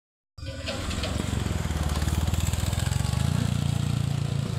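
Small motorcycle engine running as the bike approaches on the road, growing louder from about three seconds in.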